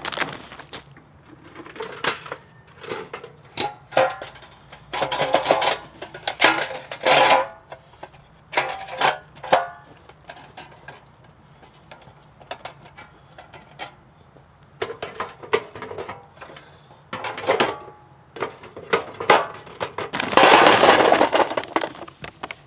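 Metal clinks and rattles as a small folding steel box charcoal grill is opened and its wire grate set in place. Near the end comes a louder rattling rush as charcoal briquettes are poured from a bag into the steel firebox.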